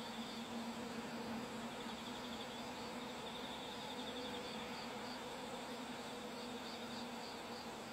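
Insects outdoors: a steady low buzz, strongest in the first couple of seconds, with faint high trilling chirps partway through and short repeated chirps near the end.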